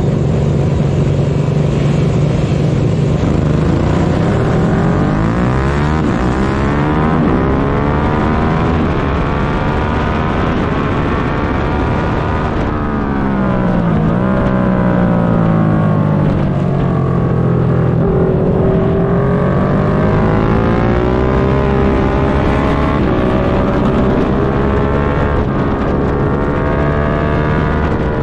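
1999 Suzuki SV650's 645 cc V-twin engine held at steady revs on the start line, then launching and accelerating hard up through the gears, the pitch climbing and falling back at each upshift. About 13 seconds in the revs drop quickly through downshifts for a corner, then it pulls hard again at high speed.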